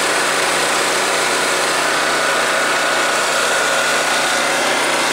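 Proforce 3125 portable generator's engine running smoothly at a steady speed, its carburetor freshly cleaned. The hum stays even throughout.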